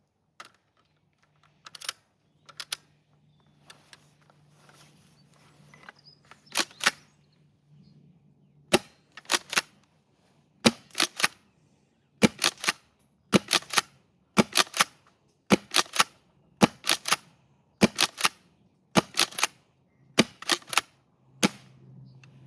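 The pump action of a Cyma CM.355 airsoft pump-action shotgun being handled with a few scattered clicks at first. From about nine seconds in it is racked over and over in a steady rhythm: a sharp double clack, back and forward, about once a second.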